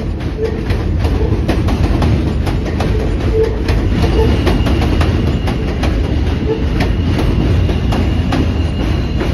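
New York City subway train running past close by, a steady low rumble with its wheels clicking over the rail joints. A thin, steady high whine comes in about four seconds in.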